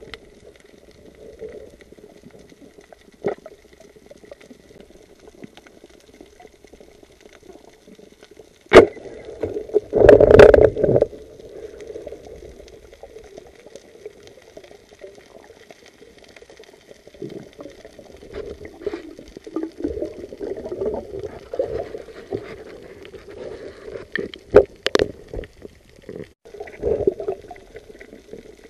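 Underwater noise on a night spearfishing dive: a muffled water hiss with scattered clicks, then a sharp crack about nine seconds in followed by a loud rush of churning water a second later as a fish is speared. Smaller clicks and scrapes of the spear against rock follow.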